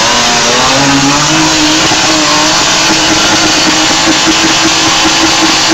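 Off-road buggy's engine revving hard under load as it claws through the mud ditch. The engine note climbs over the first couple of seconds, then is held high and steady.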